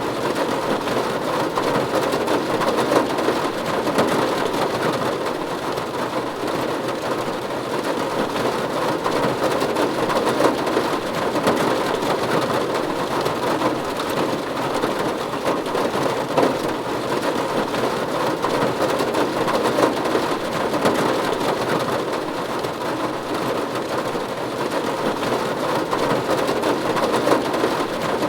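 Steady rain falling on a roof: an even, unbroken patter of many drops.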